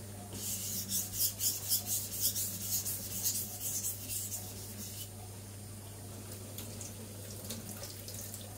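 Zwilling Five Star chef knife blade scraped back and forth on a wet Naniwa Aotoshi 2000-grit green whetstone, quick even strokes about three or four a second, reworking the blade's poorly ground, uneven factory grind. The strokes stop about five seconds in, leaving the steady hiss of a kitchen tap running into a steel sink, with a few faint strokes after.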